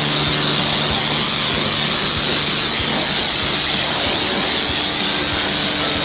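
High-pressure wash lance at a self-service car wash spraying foam onto a car: a steady hiss of spray over a low, steady pump hum.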